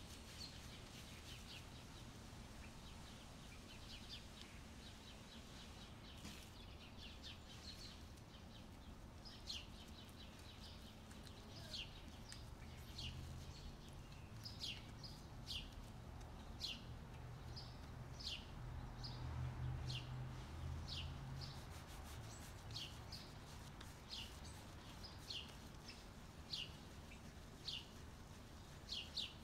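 A bird chirping faintly: short, high chirps that fall slightly in pitch, repeated about once a second, over a low steady hum.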